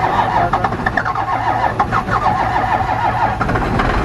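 Dodge Ram W250's 5.9 L Cummins inline-six diesel cranking over on the starter in hard cold, firing and starting to catch near the end. It is a hard cold start: the oil is thick like molasses, and the engine is getting fuel but is so cold that it struggles to start.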